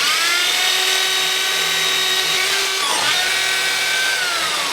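Power tool motor running with a high whine. It spins up at the start, dips briefly and picks up again about three seconds in, and begins to wind down near the end.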